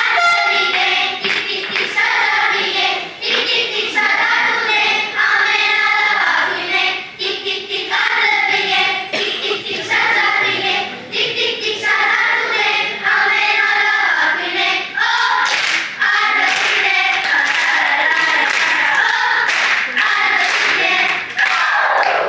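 A children's choir singing a song together in unison, with hand claps in time.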